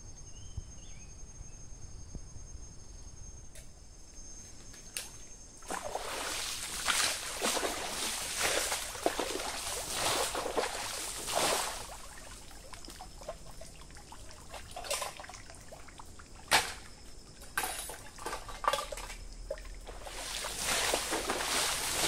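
Water splashing and pouring in irregular bursts of a second or so, with quieter gaps between. Insects chirp steadily in the first few seconds.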